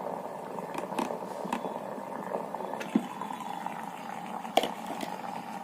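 Electric steam vaporizer boiling water: a steady bubbling hiss with a few sharp clicks or pops.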